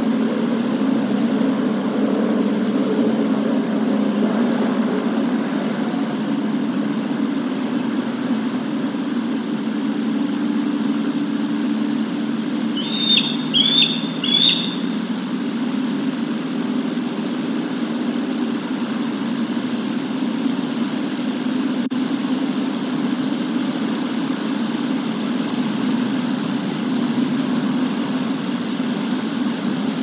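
Steady low outdoor rumble, with a bird giving three quick, bright chirps about thirteen seconds in and fainter high bird calls near nine and twenty-five seconds.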